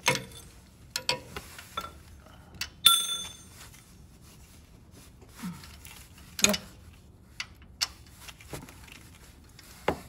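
Irregular metallic clicks and clinks of a ratchet wrench and deep socket being handled on a loosened engine belt tensioner bolt, with one ringing metal clink about three seconds in.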